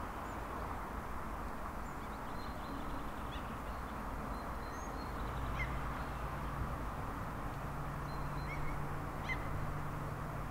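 Outdoor background noise with scattered short bird calls, and a low steady engine hum that comes in about halfway through.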